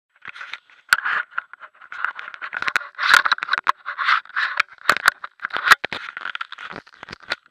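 Close handling noise on the camera: irregular scraping and rustling against its housing, broken by many sharp clicks and knocks, which stops near the end.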